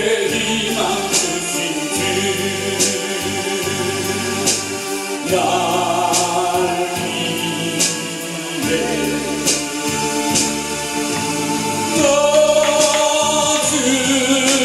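A man singing a Korean gospel hymn into a microphone over electronic keyboard accompaniment, with held bass notes and a steady beat of cymbal strikes.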